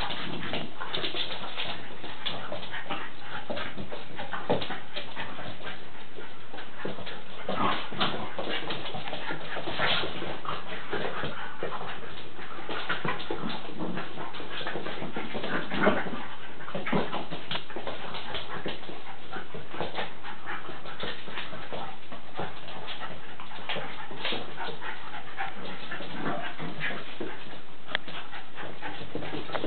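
Small dogs play-wrestling, whining as they scuffle, with many short sharp noises throughout.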